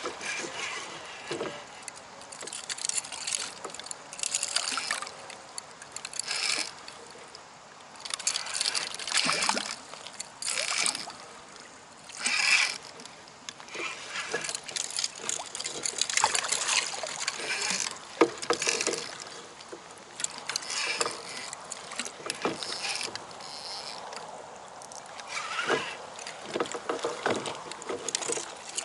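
Water splashing and knocking around a fishing kayak in irregular bursts, every second or two.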